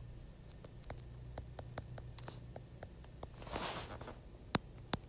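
Stylus tapping and scratching on a tablet's glass screen during handwriting: a faint, irregular run of small clicks, with a brief louder rush of noise a little past halfway.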